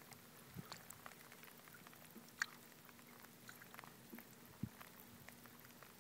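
Near silence: a faint, steady low hum with scattered small ticks, one sharper tick about two and a half seconds in and another about four and a half seconds in.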